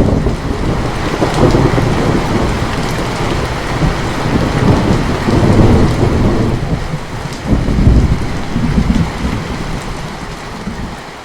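A thunderclap rolling over steady rain: the rumble breaks in suddenly, swells in waves with a second strong surge about two-thirds of the way through, then fades away near the end while the rain hiss carries on.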